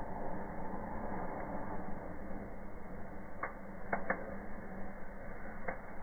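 Fireplace fire driven by a 100 cm giant sparkler, burning with a steady rushing hiss, with four sharp crackles in the second half.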